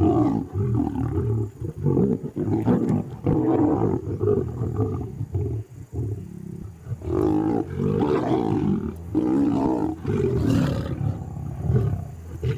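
Lions snarling and growling in a fight over a kill, a run of harsh, rough growls that drops off briefly about six seconds in before flaring up again. The male is angrily threatening the lionesses away from the carcass.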